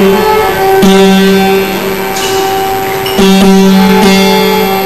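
A long bamboo-necked, gourd-bodied folk string instrument plucked as a steady twangy drone, with fresh plucks about a second in and again after three and four seconds.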